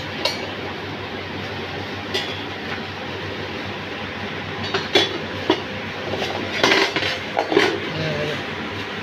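Small silver pieces, a silver langala (plough) among them, clinking and tapping as they are handled and set down on a plastic chair seat. The clinks are scattered, with the loudest cluster a little past the middle, over a steady background noise.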